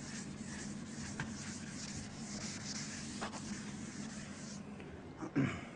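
Handwriting: uneven scratchy pen strokes, in short spurts that stop shortly before the end, over a steady low hum.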